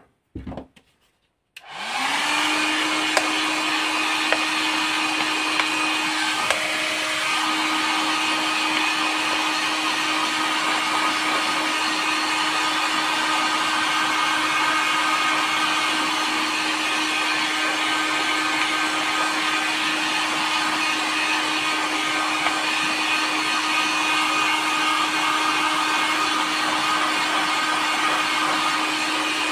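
Electric heat gun switched on about two seconds in, its fan spinning up and then blowing steadily with a constant hum.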